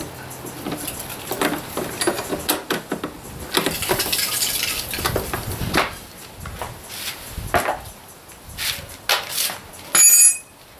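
Allen key working the mounting-bracket bolt on a motorcycle exhaust muffler: irregular metal clicks, scrapes and rattles of the tool in the bolt head and bracket. Near the end comes one short, loud metallic ring.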